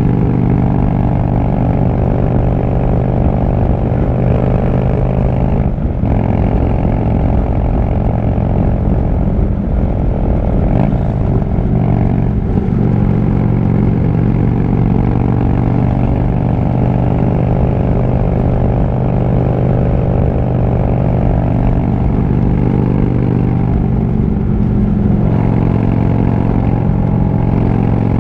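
Harley-Davidson V-twin motorcycle engine running steadily while riding along at road speed. The engine note dips briefly about six seconds in, changes pitch around eleven to twelve seconds in, and shifts again near the end.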